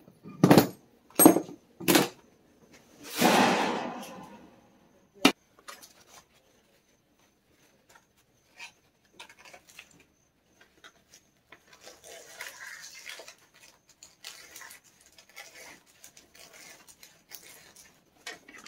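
Copper and brass plumbing fittings and hand tools knocking and clinking as they are handled on a workbench: three sharp knocks in the first two seconds, a longer scraping rasp about three seconds in, a single click, then lighter clicks and rustling.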